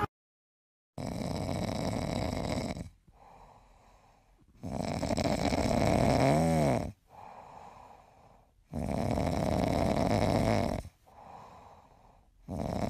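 A pet snoring: long, rasping breaths roughly every four seconds, with a brief whistling wobble in pitch during the second one.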